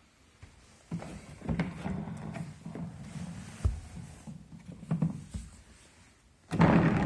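Plastic rolling toolbox being handled: a run of hollow knocks and clattering, with a sharp knock midway and a louder thud near the end, like the lid or parts being shut and set down.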